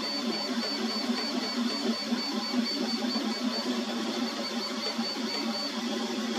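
Ortur 4 3D printer running a print: its stepper motors buzz and chatter steadily as the print head moves. A thin high tone pulses about three times a second and stops about a second before the end.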